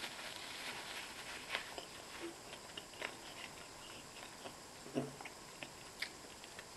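Close-miked eating sounds: chewing and small wet mouth clicks, with a few sharper clicks now and then.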